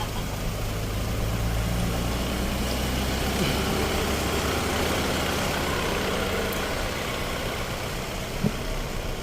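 Diesel engine of heavy farm machinery running steadily. Its sound shifts about three and a half seconds in, as the deep steady hum gives way to a busier mid-range rumble. There is a short knock near the end.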